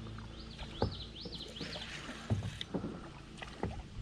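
Kayak being paddled: a few sharp knocks of the paddle against the hull over steady low water and boat noise. A bird chirps a quick run of about five rising-and-falling notes in the first two seconds.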